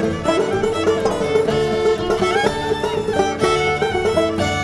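Old-time string band playing a square dance tune with a steady beat: a fiddle leads over plucked strings.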